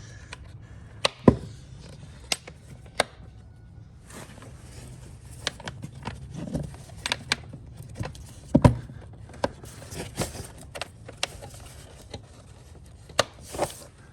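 Scattered sharp plastic clicks and knocks as a car's air filter box is set back into the engine bay and fitted, over a steady low hum.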